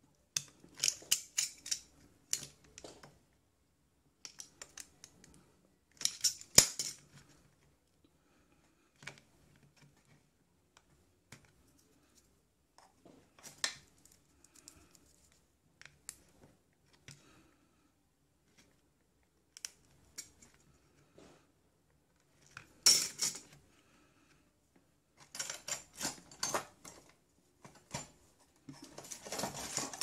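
A small metal blade scraping and prying at hot-melt glue holding a circuit board and connector inside a plastic speaker housing, in short scratchy bursts with gaps between, and small clicks and knocks of metal tools.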